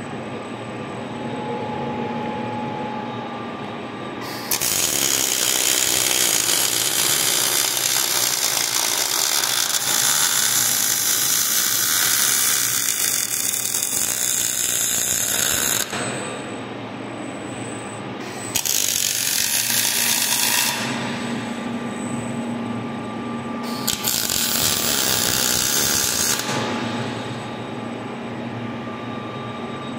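Robotic MIG welding arc crackling and hissing in three runs: one long weld of about eleven seconds, then two short welds of about two seconds each. A quieter steady machine hum fills the gaps while the torch moves between joints.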